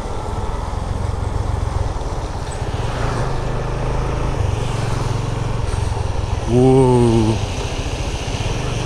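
Motorcycle engine running steadily while riding. About six and a half seconds in, a louder pitched tone with a slight waver cuts in for under a second.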